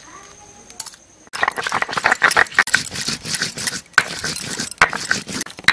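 Dried red chillies being crushed on a flat grinding stone (sil-batta) with a stone roller: after a quiet start, a dense run of rapid scraping and crackling strokes begins about a second in and keeps going.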